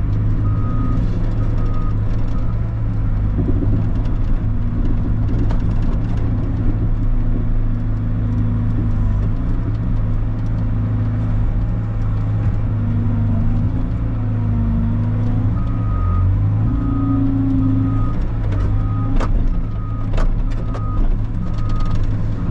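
Diesel skid steer running under load while it cuts and pushes dirt, its engine note rising and falling with the work. Its reversing alarm beeps briefly at the start and again steadily from about two-thirds of the way through, with a few metal clanks near the end.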